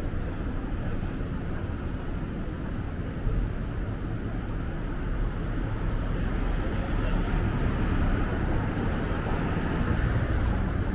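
City street traffic: a steady rumble of passing vehicles that grows a little louder in the second half, with wind rumbling on the microphone.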